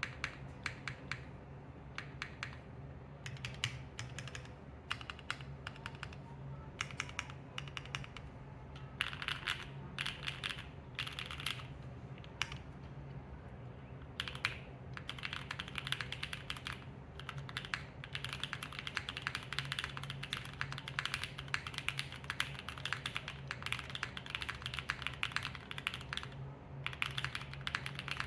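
Typing on a Neo80 mechanical keyboard, built plateless and without foam, with Gateron Modern Grey switches and GMK Jamon 2 keycaps. Separate keystrokes come at a moderate pace for the first several seconds, then give way to fast continuous typing with short pauses.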